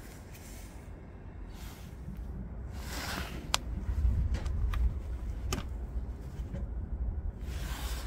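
Fingers prying a rubber grommet out of a Volkswagen Polo's door edge: scraping and rustling, then a few sharp clicks in the middle as it works loose, over a low rumble of wind on the microphone.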